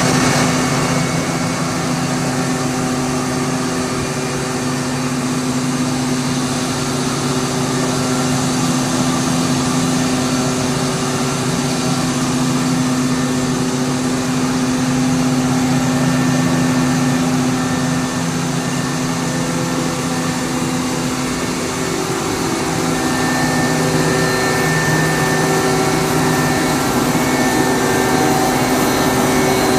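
A 315 kW two-stage screw air compressor, driven by a permanent-magnet motor on a frequency converter, running steadily: a constant loud rush with a steady low hum and fainter whining tones over it.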